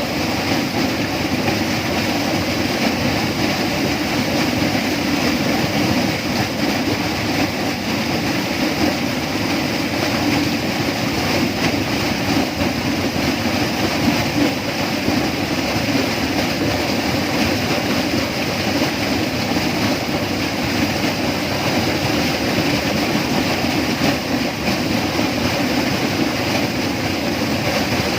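Steady tropical rainforest ambience: an even, unbroken rushing noise with no separate calls or events standing out.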